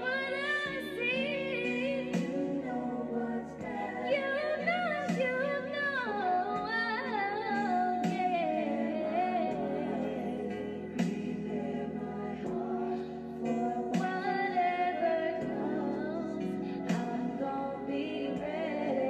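A woman singing a slow gospel song into a microphone, holding long notes with vibrato and melodic runs, over held accompaniment chords that change every second or two.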